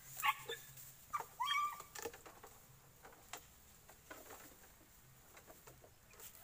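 Hunting dog giving several short yelps and a whine in the first two seconds, then faint scattered crackles of movement through dry bamboo litter.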